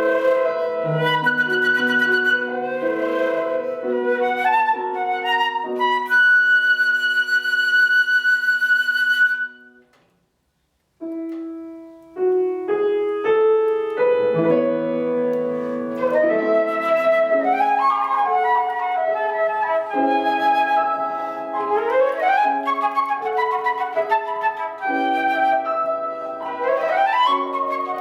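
Flute with piano accompaniment playing a classical piece. A long held note ends about ten seconds in, and after a pause of about a second the music resumes with quick rising runs.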